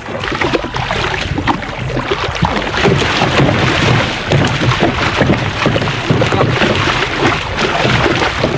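Small fishing boat under way at sea: its motor running with a steady low hum while water splashes and rushes against the hull, with wind buffeting the microphone.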